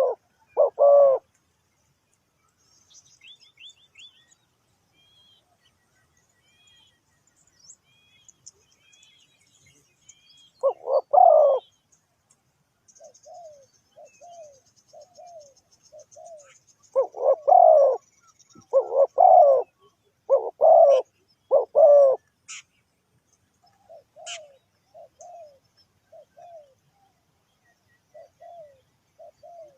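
Spotted dove cooing: loud, deep coo phrases at the start, about 11 seconds in, and four in a row near the middle, with softer, shorter coos between them. Faint high chirping of small birds sounds in the background.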